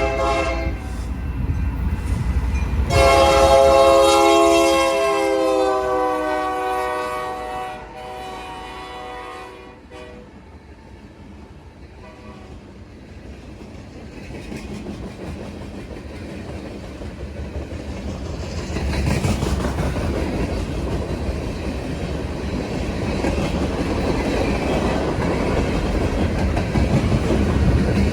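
Locomotive multi-chime air horn: a short blast at the start, then a long loud blast about three seconds in that sags slightly in pitch and fades out. Then the train rolls by, wheels clicking on the rails, the noise building and getting loud for the rest of the stretch.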